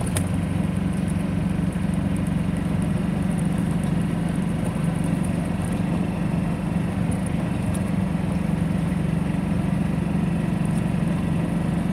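Golf cart driving at a steady speed, its motor giving a steady low drone.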